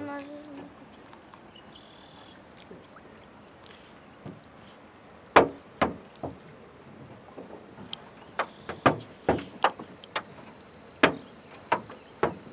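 Sharp, irregular knocks and clunks against the fishing boat as a snagged gill net is hauled aboard, starting about five seconds in and coming thicker near the end. Insects chirr faintly and steadily in the background.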